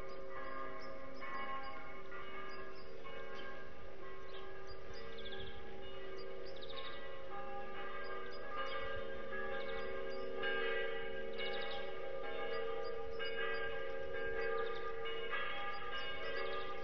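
Church bells ringing: several bells struck one after another, each strike ringing on and overlapping the next.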